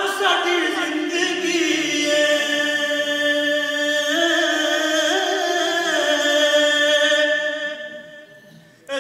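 A man singing a naat unaccompanied into a microphone, drawing out one long ornamented note that steps up in pitch about four seconds in, falls back about two seconds later, and fades away near the end before the next line begins.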